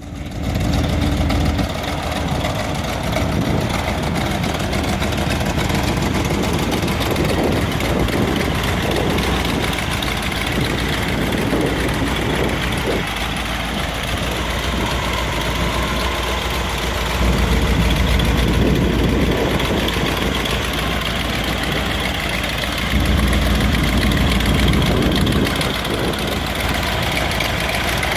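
The 1949 International rat rod pickup's engine idling steadily, with a louder stretch a little past the middle.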